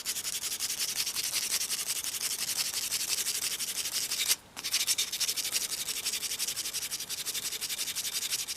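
220-grit sandpaper rubbed by hand in quick back-and-forth strokes over the translucent plastic butt of a screwdriver handle, sanding out gouges. The strokes break off briefly about four and a half seconds in, then carry on.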